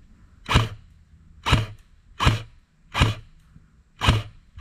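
Airsoft rifle firing five single shots in semi-automatic, about one every second.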